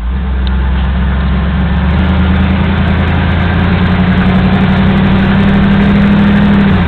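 Dodge pickup's 5.2-litre V8 engine running steadily under way, heard from inside the cab. The sound grows a little louder as it goes.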